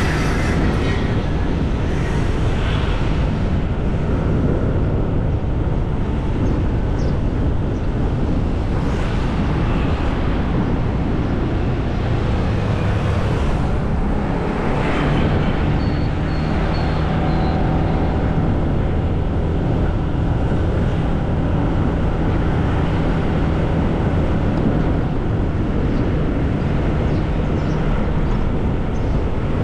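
Steady street traffic noise heard on the move: a continuous low rumble of engines and road noise with a steady engine hum, and a few brief higher sounds passing in the middle.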